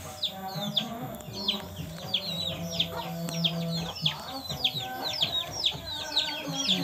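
Chicks peeping: a steady stream of high, falling chirps, several a second.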